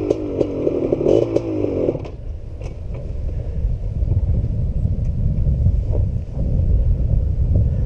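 Honda ATC 250R three-wheeler's two-stroke single-cylinder engine running with a wavering note, which cuts off abruptly about two seconds in. After that only a low rumbling noise remains, with scattered clicks and knocks.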